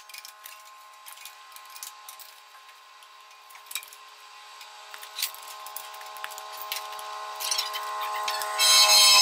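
Scattered clicks and clinks of hand tools on metal as bolts are worked on under the tractor. Under them a steady hum grows louder, and near the end it turns into a loud high screech.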